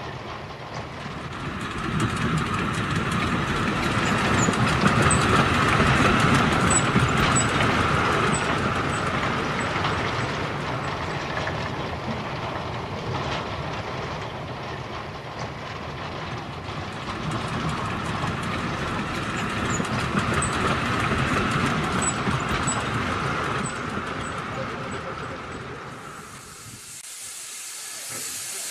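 Model train running on its track: a continuous rumble with a whine that swells and fades twice as the train passes, with faint regular clicks. Near the end it drops away and a steady high hiss begins.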